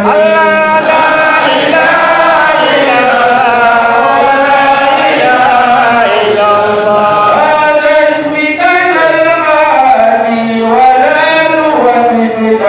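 A man chanting a devotional song solo into a handheld microphone, amplified, in long held phrases whose pitch bends and wavers.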